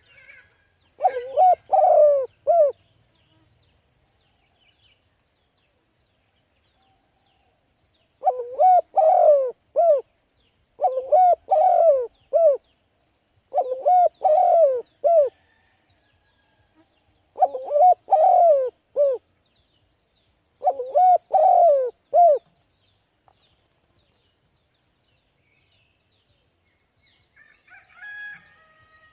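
Spotted dove cooing: six phrases of several low coos each, one about a second in and then, after a pause of several seconds, five more a couple of seconds apart. Faint higher chirping comes in near the end.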